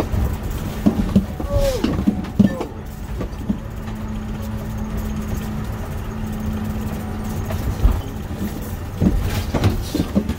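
An old RV motorhome driving at low speed, heard from inside the cab: a steady engine and road rumble with a constant drone, over which loose interior parts rattle and knock now and then, most busily near the start and again near the end.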